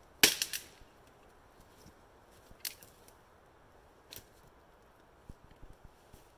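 Wood cracking: a quick run of sharp snaps just after the start, then two single snaps spaced out, with a few faint soft knocks near the end.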